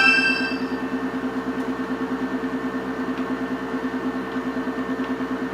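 The last synthesizer note dies away in the first second, leaving a steady low electrical hum that flutters rapidly and regularly in loudness, about six times a second.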